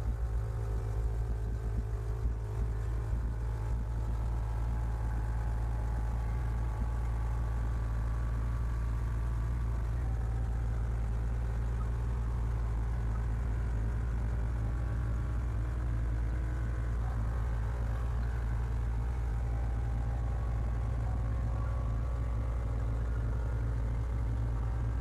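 Truck engine idling while a NAPA electric on-board air compressor runs, pumping the air tanks up from empty. The two make a steady, low hum.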